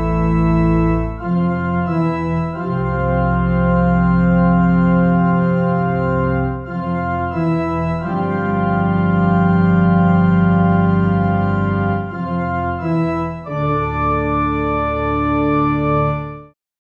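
Sampled pipe organ, the pedal part played on its own: deep, long-held notes that change every few seconds, stopping abruptly near the end.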